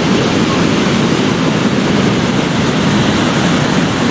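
Ocean surf breaking on the beach, with onshore wind on the microphone: a steady, even rush of noise.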